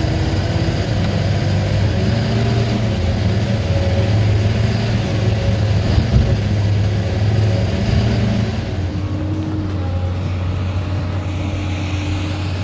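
A heavy vehicle engine running steadily with a low hum; it drops a little in level about nine seconds in.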